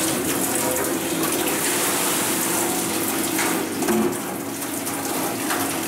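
Water running steadily, being drawn for the bagel dough, over a steady low machine hum.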